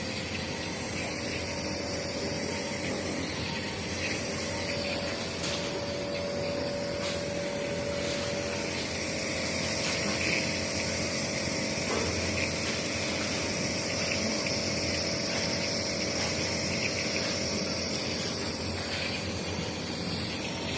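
Small electric nebulizer-type inhaler running steadily, a motor hum with an even hiss of spray, as used for a child's cough and cold.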